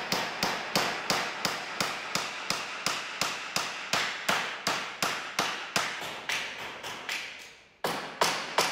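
Claw hammer driving staples through welded wire mesh into a timber frame: quick, even blows about three a second, with a brief break near the end before the blows resume.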